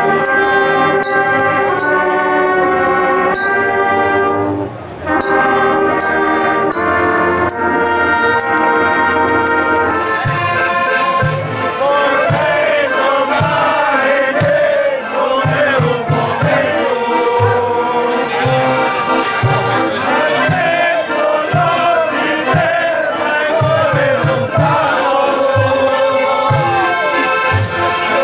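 Brass band with clarinets and a bell lyra (glockenspiel) playing in the open air. About ten seconds in it gives way to a group of men singing together to a drum and tambourine beat.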